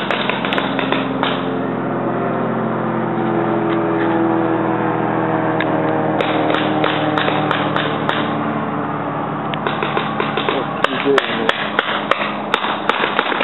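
Paintball markers firing rapid runs of sharp popping shots. The shots thin out for a few seconds in the middle and come thick again near the end, over a steady droning sound with several pitches.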